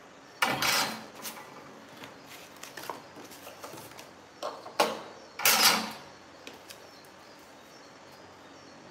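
Pieces of cardboard and hand tools being handled and set down: a rustle about half a second in, a sharp knock near five seconds, and a louder, longer rustle just after.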